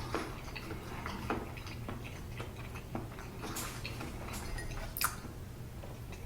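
Close-miked chewing and wet mouth sounds of someone eating, with scattered small smacks and one sharper click about five seconds in.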